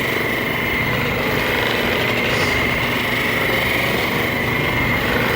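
Handheld percussion massage gun running steadily, with a constant high whine over its buzzing motor.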